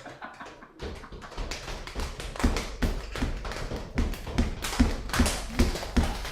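Quick, irregular tapping and knocking, several strikes a second, starting about a second in and growing louder: hand-made foley sound effects.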